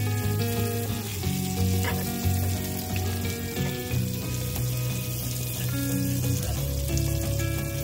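Onion rings sizzling in bacon grease in a frying pan, stirred now and then with a plastic utensil, over background music with held notes.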